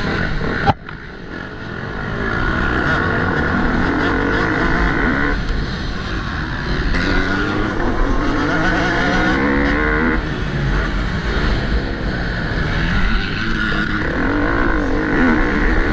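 Motocross bike engines revving, their pitch rising and falling again and again. A sharp click comes about a second in.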